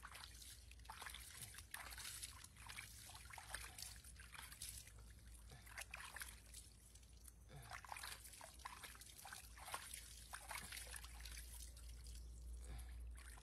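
Faint bath water trickling and splashing in a plastic basin as a hand scoops it over a baby monkey, in many small irregular splashes and drips.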